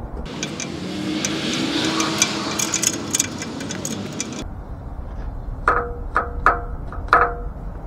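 Ratchet strap on a trailer load being worked tight by hand: a stretch of rustling with small clicks, then four sharp metallic ratchet clicks with a short ring, about half a second apart. The strap was loose and is being tensioned.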